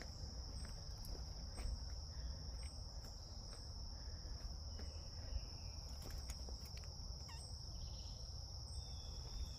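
Insects drone steadily at a high pitch, with a low rumble and a few faint ticks underneath.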